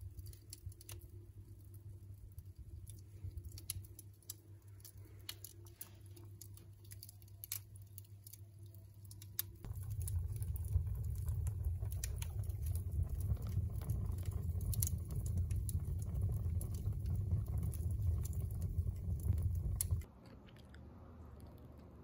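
Wood fire crackling and popping with sharp irregular snaps over a low rumble of burning; the rumble grows louder about ten seconds in as the flames flare up, then the sound drops away near the end.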